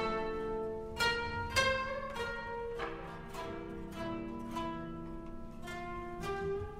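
Koto ensemble playing: plucked strings ringing and fading, with two strong plucked accents about a second in, then a softer run of notes.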